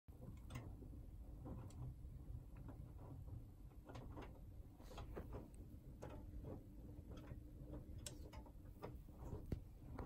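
Hoover Axi front-loading washing machine during its load-sensing phase: a low steady motor hum as the drum turns, with irregular clicks and soft knocks about once a second as the wet laundry shifts.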